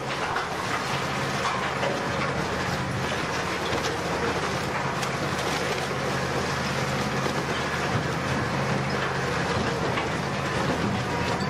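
Industrial car shredder running under load, its drive droning steadily while a car body is torn apart in the hopper, with continual crunching and cracking of metal.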